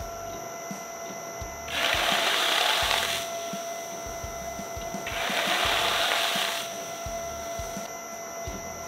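Twin-shaft shredder running empty with a steady electric whine and hum, its cutter shafts turning with no load. About 2 and 5 seconds in come two louder hissing bursts, each about a second and a half long.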